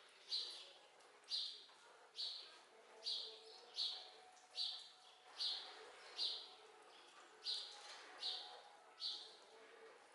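A bird calling over and over, one short high call a little more than once a second, at an even pace.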